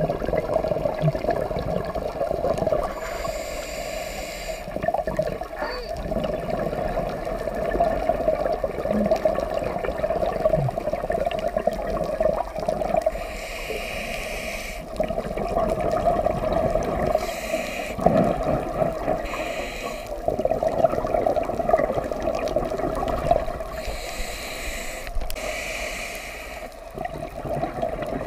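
Scuba diver's regulator breathing recorded underwater: hissing breaths come every few seconds with bubbling and gurgling water, over a steady hum.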